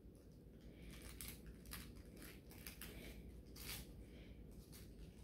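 Faint, scattered rustling and soft ticks of Redbone Coonhound and beagle puppies mouthing and chewing plush toys on a fleece dog bed.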